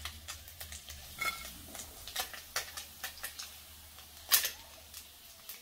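Scattered light clicks and taps of a spatula against a kadai as fried small fish are lifted out of the pan, with one louder knock about four seconds in.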